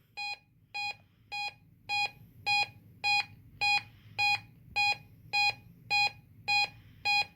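NOAA Weather Radio receiver sounding its alert alarm, a steady series of short beeps about two a second that grow louder over the first couple of seconds. It is set off by the weekly test of the National Weather Service warning alarm tone.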